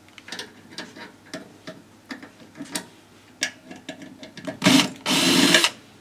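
Cordless drill-driver backing out screws from a microwave oven's chassis: a string of light clicks and knocks, then the drill runs in two bursts near the end, the second longer at under a second.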